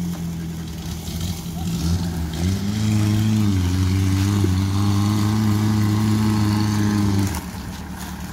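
Suzuki Katana/Jimny-type off-road jeep's engine, running at low revs at first, then revved up about two and a half seconds in and held at steady high revs under load on the climb. It drops back to a lower run near the end.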